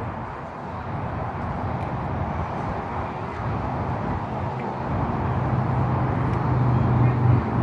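A motor vehicle's engine drawing nearer and growing louder over outdoor background noise, with a steady low engine hum coming in about halfway through.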